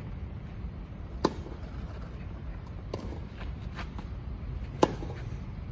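Tennis ball struck by rackets during a rally: two sharp hits about three and a half seconds apart, with a few fainter ticks between, over a steady low hum.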